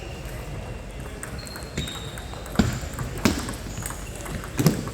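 Table tennis ball being struck back and forth in a rally: four sharp clicks of ball on bat and table, well under a second apart, the last one the loudest.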